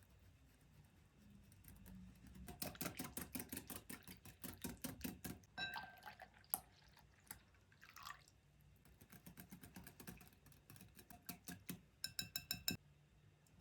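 A utensil beating quickly in a bowl, a run of fast even strokes. It stops, brings a few ringing clinks against the bowl, and starts again for a second run that ends in rapid ringing taps.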